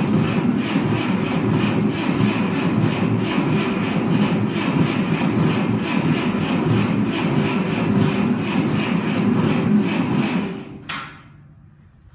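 Ferguson TO-30 tractor engine turning over on its starter, with ether in the intake, in an even pulsing rhythm for about ten seconds without catching, then the starter lets off. The owner judges that it is not spinning over fast enough to fire.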